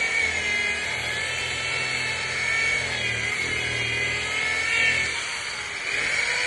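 Handheld electric polisher running with its pad pressed against a boat hull, a steady motor whine that wavers slightly in pitch as the pad is worked over the surface.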